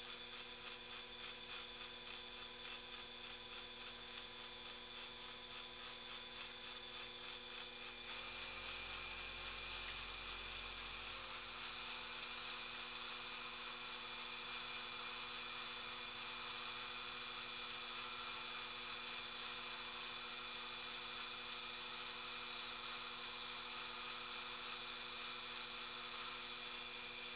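Small metalworking lathe running under power while boring out a hole, a steady motor hum with a high whine; the whine gets louder about eight seconds in and stays there.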